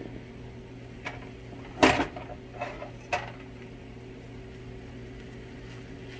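Silicone spatula scraping and knocking against a nonstick skillet as fried rice is stirred and broken up: a few short strokes in the first three seconds, the loudest about two seconds in, over a steady low hum.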